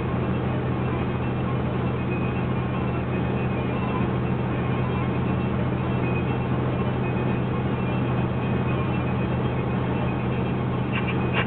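Steady engine and tyre noise of a car cruising at highway speed, heard from inside the cabin as a constant low hum.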